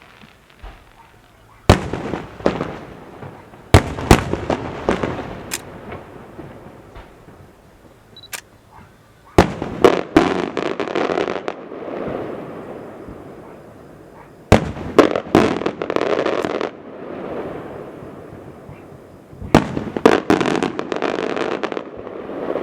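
Maltese festa fireworks going off in clusters of sharp bangs, each followed by crackling and a long rolling echo, with a fresh cluster every few seconds.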